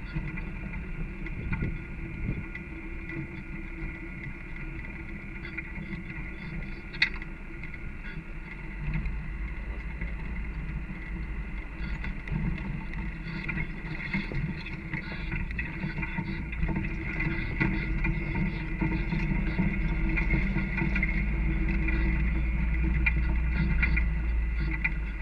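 Off-road vehicle driving slowly over a rough dirt trail, heard from inside the cab: a steady engine drone with small rattles and knocks from the bumpy ground, and one sharp click about seven seconds in. It grows louder in the last third.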